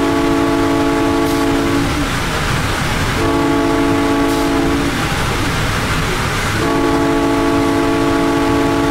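SunRail commuter train's multi-chime air horn sounding: a long blast ends early on, a shorter blast follows, then a long blast begins near the end, a long-short-long sequence that fits the close of a grade-crossing signal. Steady rumble of the running train beneath.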